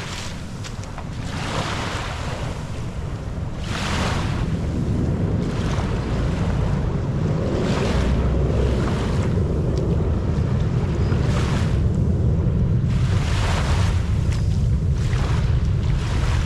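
Small waves lapping on a sandy shore, a soft wash every second or two, over a steady rumble of wind on the microphone.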